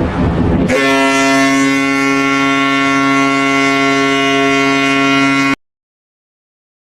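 Ship's horn sounding one long, steady, deep blast of about five seconds after a brief rush of noise, then cutting off abruptly.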